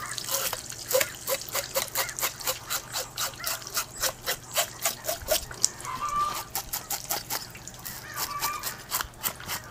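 Back of a fillet knife scraping scales off a wet salmon in quick, repeated strokes, about three or four a second.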